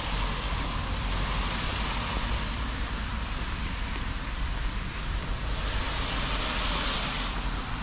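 Wind rumbling on the microphone over a steady outdoor hiss. The hiss swells for a second or two about five and a half seconds in.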